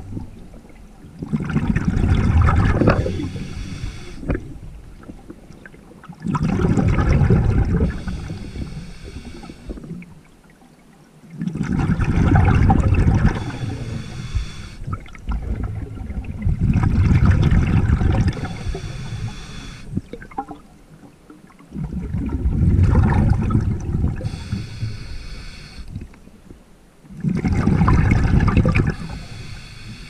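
A diver's breathing heard underwater: about every five seconds a two-second rush of exhaled bubbles, each followed by a shorter hiss of breath drawn in.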